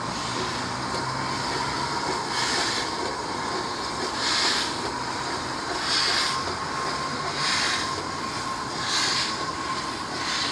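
Great Western 6400-class pannier tank locomotive 6430 pulling away with its auto coach: slow steam exhaust beats over a steady hiss of steam. The first beat comes about two seconds in, then they repeat roughly every one and a half seconds, quickening a little as the engine gets going.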